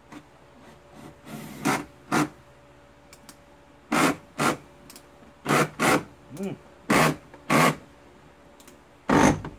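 Cordless drill driving the screws of a Ford Bronco door panel, its clutch set to about 6 so the screws don't strip. It runs in short bursts, mostly in pairs about half a second apart.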